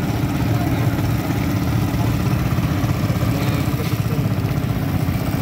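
Small engines of outrigger pump boats running steadily with a fast, even chugging beat.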